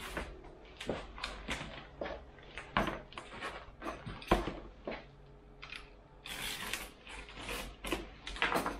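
A large flat cardboard package being handled on a workbench: a string of sharp knocks, taps and rubs of cardboard, with a longer scraping rustle about six and a half seconds in.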